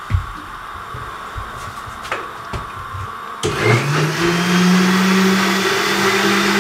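Countertop electric blender switched on a little past halfway, its motor whine rising quickly and then holding a steady pitch as it grinds a thick ketchup mixture. Before it starts there are a few knocks.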